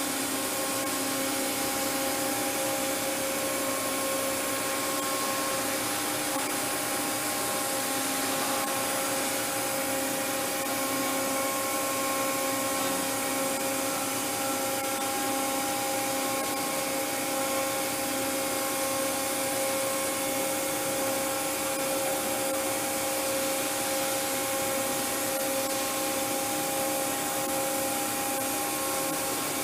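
Steady machine hum of a KAFO KG-10080 gantry five-axis machining center running while its automatic tool changer swaps a tool in horizontal position. It is a constant drone with several held tones over an even hiss, with no distinct clunks.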